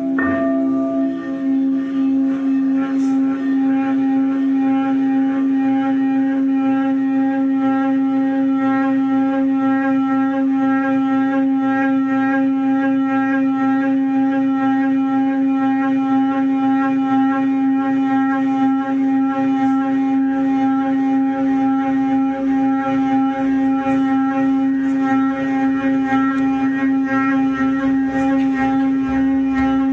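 A sustained musical drone held on one steady pitch with rich overtones, unbroken for the whole time, sounding like a wind instrument. A brief struck note sounds right at the start.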